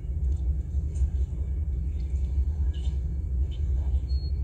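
A steady low rumble, with a faint brief high beep near the end.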